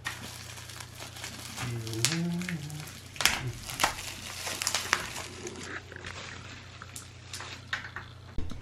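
Scattered clicks, taps and knocks of small objects being handled, with a brief voiced, vocal-like sound about two seconds in, over a steady low hum.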